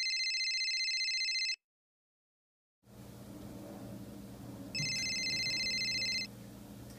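Telephone ringing: two trilling electronic rings, each about a second and a half long, the second coming about five seconds after the first.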